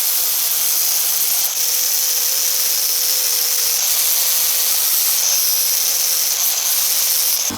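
A power tool running steadily against the metal of a cast-iron vise, abrading its surfaces clean, with a high hissing scrape broken by a few brief dips.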